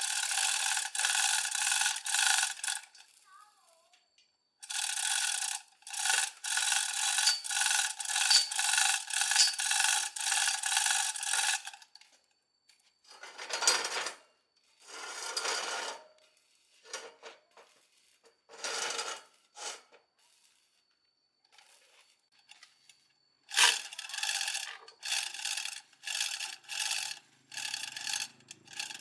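Hand scraping or filing in steady back-and-forth strokes, about two a second, in several runs with pauses between them.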